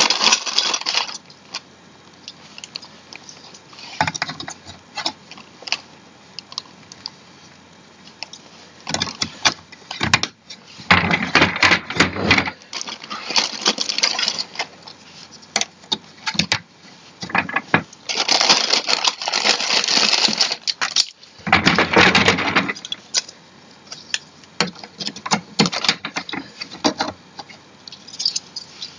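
Irregular clicks, knocks and rustling from parts being handled while assembling an office chair, with a few longer stretches of rustling.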